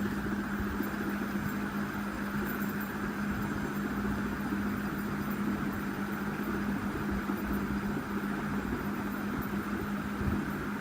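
Fidget spinner spinning on a tablet's glass, a steady whirring hum whose pitch holds constant.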